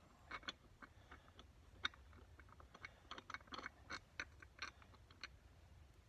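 Light, irregular metallic clicks and taps, some in small clusters, as wheel nuts are handled and fitted onto the hub studs of a mower's red steel front wheel rim.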